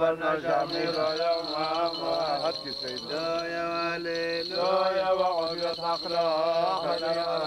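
A man's voice chanting a Syriac Orthodox liturgical prayer, holding long notes that waver and bend in pitch.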